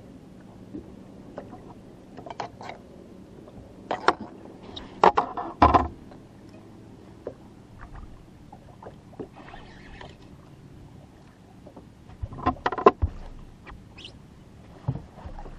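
Scattered knocks and clatters on a bass boat as an angler fights a hooked fish on a bent rod. The loudest come about four to six seconds in and again near thirteen seconds, over a faint steady low hum.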